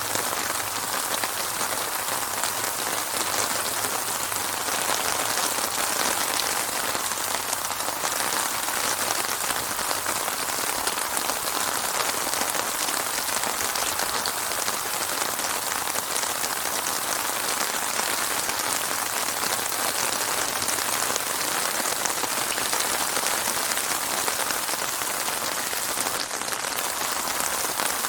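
Steady rain falling: a dense, even hiss of many drops with fine individual patters, and no thunder.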